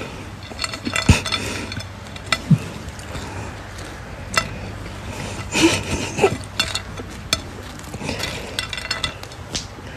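Scuffling and rustling with scattered sharp clicks and knocks as a cat paws at a plate of fries on a bed and a hand pushes it away. A few short voice-like sounds come around the middle.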